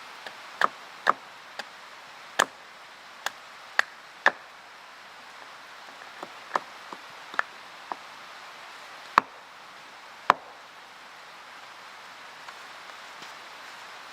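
Sharp, irregular woody knocks and cracks, about fifteen of them, scattered unevenly and thinning out after about ten seconds, over a steady hiss.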